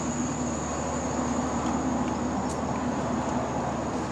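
Steady mechanical drone with a low hum, from a motor running in the background.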